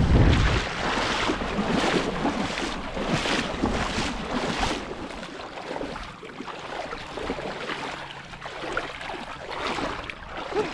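Wind buffeting the microphone over shallow seawater, with repeated splashing and sloshing from wading steps through the water. The splashing is strongest in the first half and settles into a quieter wash of water and wind after about five seconds.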